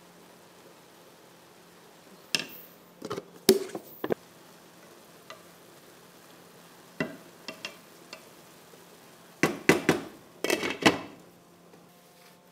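Kitchen clatter: a wooden spoon knocking and scraping in a metal pan of bulgur and vermicelli, with scattered clinks and knocks of pots and dishes. The knocks are sparse at first and come in a denser run of clatter near the end.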